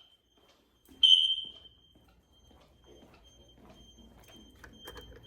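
An alarm panel's beeper gives one loud, high-pitched electronic beep about a second in that fades within half a second, then keeps up a faint high beep that comes and goes.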